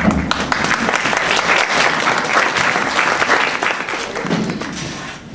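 Audience applauding: many hands clapping, starting at once and thinning out after about four seconds.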